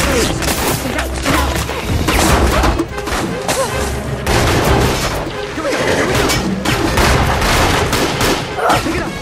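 Rapid volleys of gunshots in a film gunfight, with music underneath.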